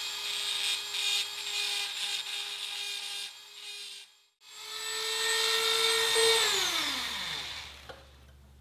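Dremel rotary tool with a grinding bit running at a steady high whine while grinding a small channel into the metal control box housing, with a rough grinding rasp as the bit bites. It cuts out briefly about four seconds in, runs up again, then winds down with a falling pitch about six seconds in.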